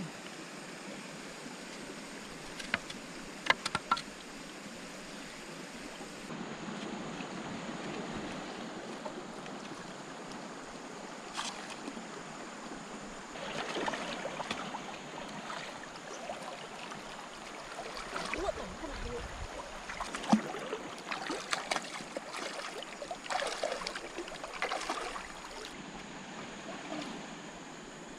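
Shallow stream running steadily over stones, with a person's legs sloshing through the water as she wades. A few sharp knocks come a few seconds in, and irregular splashing comes and goes through the second half.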